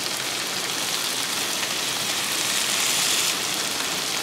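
Marinated pork chops and jalapeños sizzling steadily in oil and pan juices on a Blackstone E-Series electric griddle heated to 365°F, the sizzle swelling slightly about two to three seconds in.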